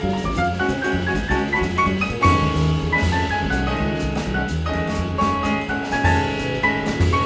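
Small jazz group playing live: fast runs of short notes, most likely piano, over bass and drum kit with cymbals.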